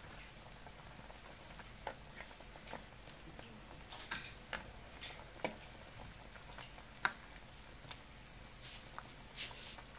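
Pot of pork soup at a rolling boil, a faint steady bubbling, while a plastic ladle stirs it, giving scattered light knocks and clinks against the pot.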